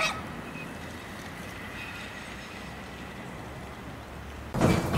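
E1 tram running, a steady rumbling noise with a faint steady whine over it, and a short loud burst of noise near the end.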